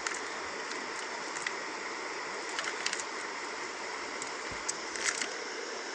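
Steady rush of flowing stream water, with a few faint clicks scattered through it.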